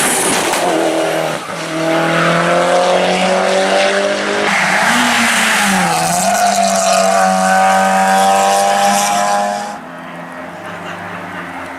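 Hill-climb race car engine at full throttle, revs climbing through upshifts. About halfway through the revs dip and come back up under a rush of tyre noise, then the engine pulls hard at high revs until the sound drops away suddenly near the end.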